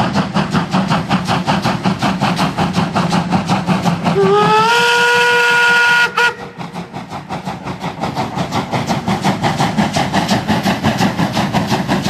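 Steam locomotive working hard as it pulls a heavy freight train, with rapid, even exhaust chuffs. About four seconds in, its steam whistle gives one blast of about two seconds, rising slightly in pitch at the start and then holding, before cutting off sharply. The chuffing carries on.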